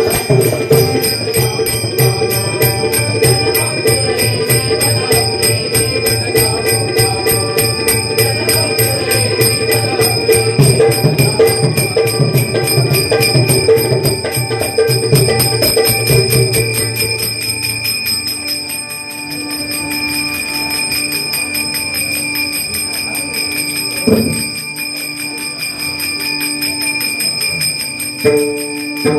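Bhajan accompaniment: small hand cymbals clashing in a fast, steady rhythm with a bright ringing, over drum and a held keyboard drone. About two thirds of the way through the drumming and fuller sound drop away, leaving the cymbals and a sustained low note, with a single thump near the end.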